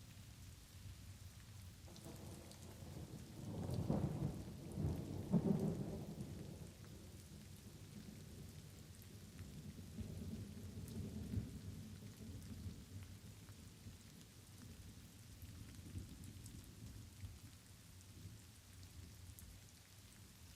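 Thunder rumbling over steady light rain. A rolling peal builds about two seconds in and is loudest twice between four and six seconds; a weaker rumble follows around ten seconds and fades, with scattered raindrop ticks throughout.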